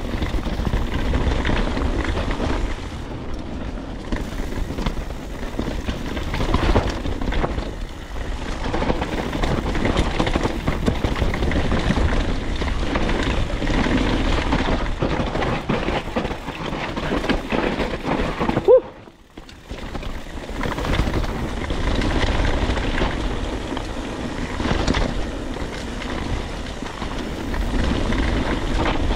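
Mountain bike riding over a rough trail: a continuous rumbling, rattling noise from the bike and tyres. About two-thirds through there is a short squeak, then the sound drops out for about a second before the rumble resumes.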